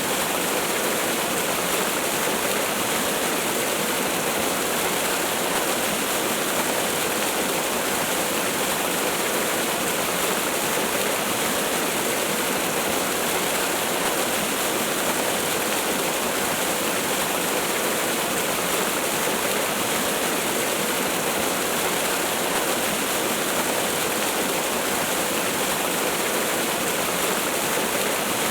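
Waterfall: a steady rushing of falling water, even and unbroken throughout.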